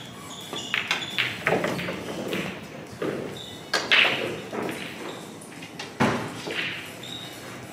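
Pool balls clacking: the cue ball struck and hitting the object ball, then a series of sharp clacks. The loudest comes about four seconds in and another about six seconds in.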